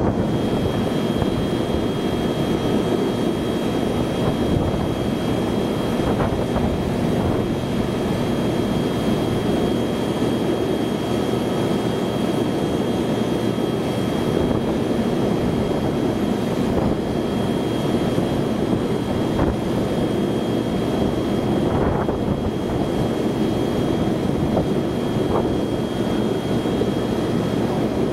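Jet aircraft engines running steadily, a broad rumble with a thin, high, steady whine over it.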